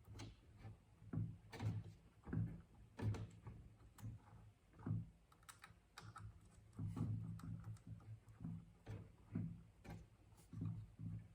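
Faint, irregular clicks and taps of a screwdriver working the small set screws of a knob cover, tightening them one after another around the knob, with low handling thuds between.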